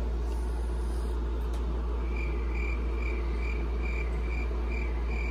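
Steady low electrical-type hum with a faint, evenly repeating high chirp that starts about two seconds in and sounds about twice a second.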